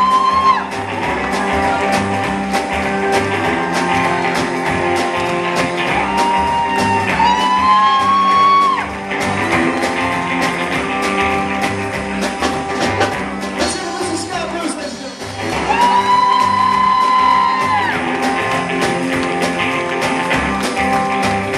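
Live rockabilly band playing: electric guitar, bass and drums with a steady beat and a stepping bass line, with long held notes that bend up and down three times.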